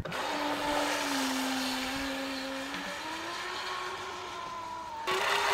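Streamline RC Thrasher jet boat's electric motor and inner jet impeller whining on 6S LiPo power, holding one pitch and then rising from about three seconds in as the boat speeds up. It gets louder near the end.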